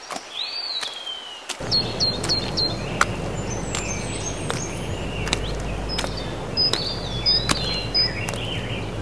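Outdoor ambience: wind rumbling on the microphone with birds chirping, and scattered sharp clicks. The rumble starts abruptly about a second and a half in.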